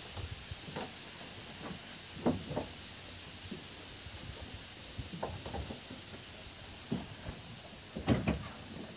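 Footsteps on a wooden boardwalk: scattered dull knocks of feet on the planks, a few seconds apart and irregular, over a steady hiss.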